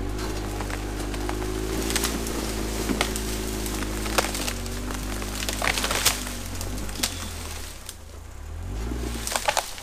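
Electric winch on a Suzuki Vitara running under load, hauling on a synthetic rope over the idling engine. Timber cracks and snaps several times during the pull. The winch whine stops about six and a half seconds in.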